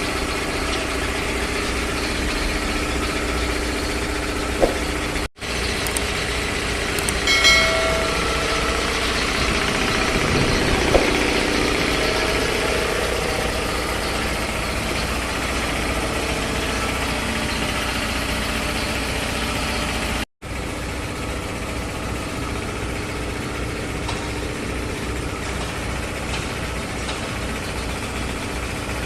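3 HP belt-driven piston air compressor running steadily after its service, with a brief whistling tone about seven seconds in. The sound cuts out for an instant twice.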